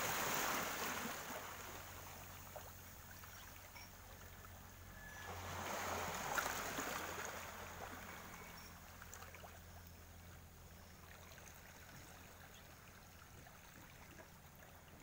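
Faint water lapping at a rocky shore, swelling briefly around six seconds in, over a steady low hum.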